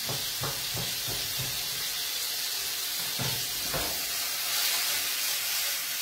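Cherry tomatoes sizzling steadily in an aluminium frying pan over a high gas flame. A knife chops on a wooden board about three times a second for the first second and a half, and near the middle the pan is tossed, after which the sizzle swells.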